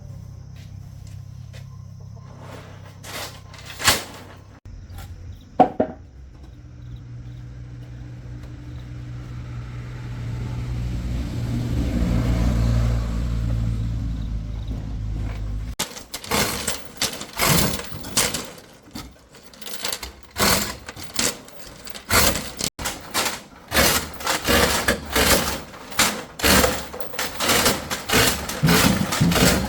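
A motor running with a steady low hum that swells louder partway through, with a couple of sharp knocks. It stops suddenly and gives way to a rapid, irregular run of knocks and clatters.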